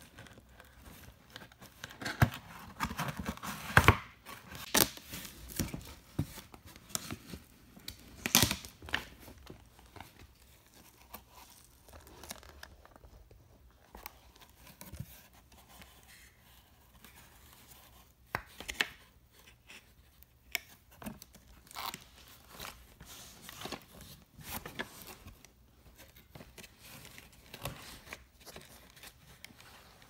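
A toy's cardboard box being opened by hand: tearing and crinkling of the packaging, with irregular clicks and scrapes as cardboard and plastic are handled. The loudest bursts come in the first nine seconds, then the handling noises grow sparser.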